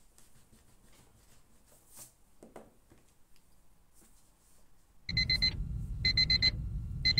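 Faint small rustles and taps, then about five seconds in an electronic timer alarm goes off: bursts of about four quick high beeps, about one burst a second, over a low buzz. It signals the end of the 50-minute study session.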